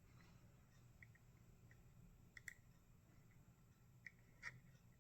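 Faint, scattered clicks from a Parkside disk detainer lock as its discs are turned with a pick, about half a dozen small ticks, the clearest about two and a half and four and a half seconds in.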